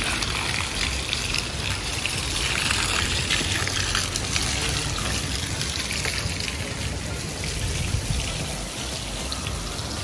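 Garden hose spraying water steadily onto an ostrich's feathers and the wet grass, a continuous hissing splash.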